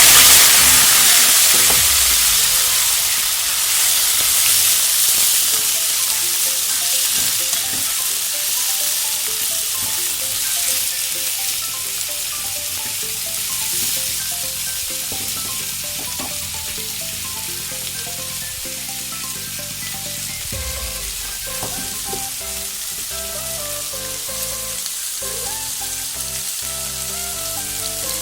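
Food tipped into hot oil in a pan, sizzling loudly at once and slowly settling down as it fries.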